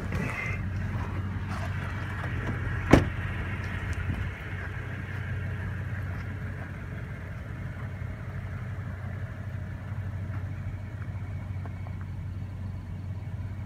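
A 2014 Toyota Tundra idling steadily, with one sharp bang about three seconds in as a truck door is shut.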